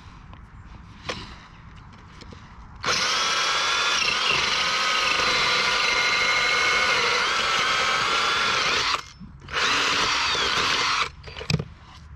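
Power drill boring into solid ice, starting about three seconds in and running steadily for some six seconds, stopping briefly, then running again for about a second and a half.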